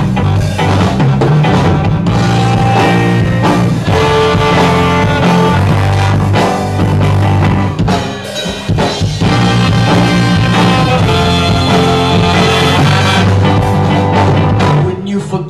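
A ska band playing live and loud: drum kit, bass, electric guitar and horns, with short breaks in the playing about halfway through and near the end.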